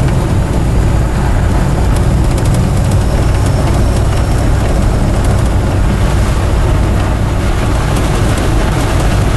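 Dodge Power Wagon's 360 cubic-inch V8 running steadily on wood gas from a gasifier while the truck drives along, heard from inside the cab together with road noise.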